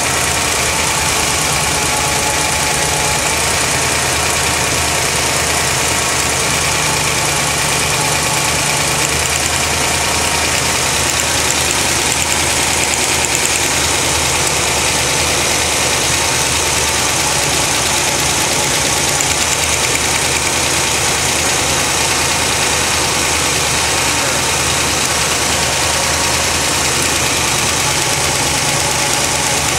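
1980 Corvette's V8 idling steadily with a fast, even ticking running through it, a tick the owner says almost sounds like the spark plugs arcing.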